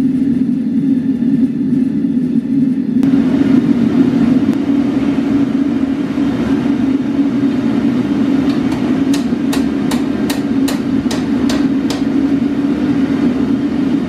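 Propane gas forge burner running steadily. From about eight and a half seconds in to about twelve seconds, a hammer strikes red-hot rebar on an anvil, about three blows a second, bending it into a loop.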